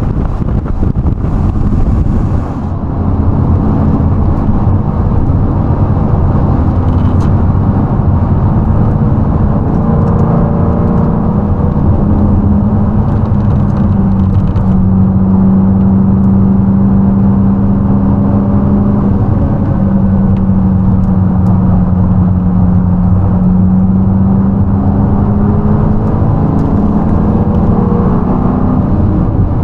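Car engine running at moderate, fairly steady revs, its pitch drifting gently up and down, with wind rushing over the microphone for the first couple of seconds.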